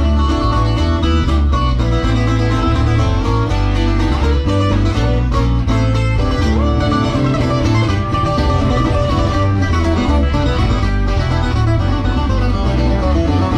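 A band playing with plucked guitars over a deep, driving bass line, loud and without a break.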